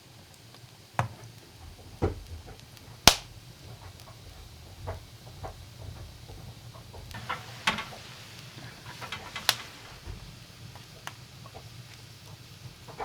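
Scattered knocks and clicks, with one sharp knock about three seconds in, over a faint low hum.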